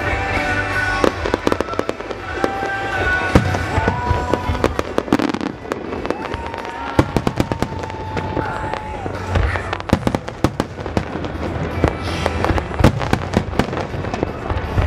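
Fireworks display: aerial shells bursting in rapid, irregular bangs and crackles, with music playing underneath.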